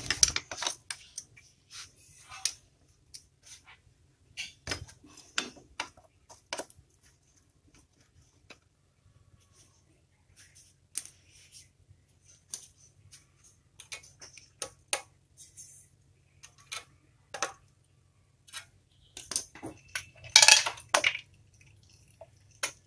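Scattered metallic clicks and clinks of a wrench and bolts as the clutch cover of a Bajaj Boxer engine is unbolted and worked loose by hand, with a busier run of clatter a few seconds before the end.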